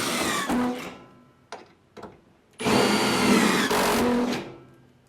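Power drill driving two Camo hidden deck screws, one through each side of the Marksman Pro X1's dual screw guides into a deck board. The first run ends about a second in and the second runs from about two and a half to four seconds in. The motor's pitch falls as each screw goes in under load.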